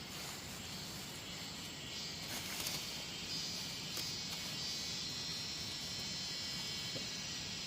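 Insects chirring in a steady chorus, a high shimmering drone that grows stronger about two seconds in, with a few faint clicks over it.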